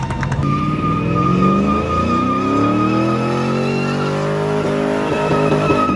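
A Pontiac Firebird doing a burnout: the engine revs up and down over and over while the spinning rear tyres squeal with a steady high tone.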